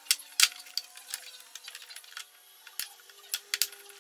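Sharp plastic clicks and knocks as the white plastic end cover of an IKEA SY sewing machine is handled and pressed onto the machine's head. The loudest click comes about half a second in, and a quick group of clicks comes near the end.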